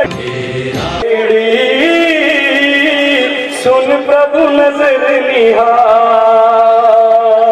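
Slow devotional music: a melody of long held, gently gliding notes carried between the sung lines of a guru prayer. A short burst of noise comes in the first second.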